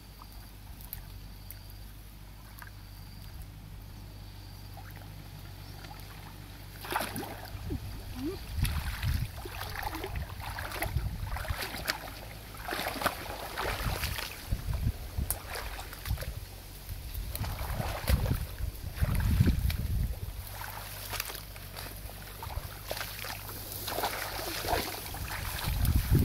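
Shallow muddy water sloshing and splashing as a person wades through it, in irregular bursts that start a few seconds in after a quiet stretch.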